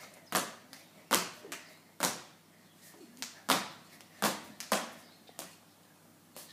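A thin plastic skipping rope slapping a tiled floor as a child jumps, together with her shoe landings: sharp, uneven strikes about once a second that peter out about five seconds in.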